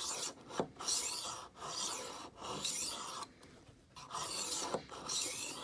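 Rolling knife sharpener's smooth metal honing disc run back and forth along a kitchen knife's edge, honing it after the abrasive side. It makes a series of rasping strokes, about seven, each under a second, softer for a moment in the middle.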